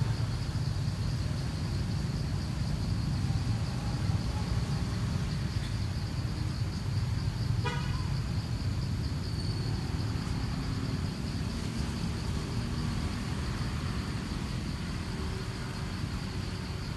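Outdoor ambience: a steady, pulsing high insect chirring over a low rumble of distant traffic, with one short pitched toot about eight seconds in.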